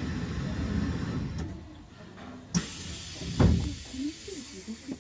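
Train's sliding passenger doors closing: a sharp click about two and a half seconds in, then a heavy thud a second later, the loudest sound here. Before them a low rumble dies down about a second and a half in.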